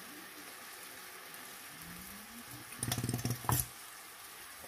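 Soy-glazed fish cake sizzling faintly in a frying pan on low heat. About three seconds in there is a brief clatter, ending in a sharp knock.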